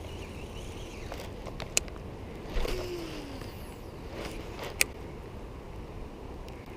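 Baitcasting reel spool whirring briefly during a cast, its pitch falling as it slows, over a steady outdoor hiss. A sharp click comes about two seconds later.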